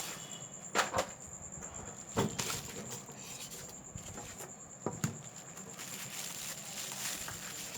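Scattered sharp clicks and light knocks, two close together about a second in, another at about two seconds and a pair near five seconds, from tools and parts being handled during a smartphone display replacement. Behind them runs a steady high chirring of crickets.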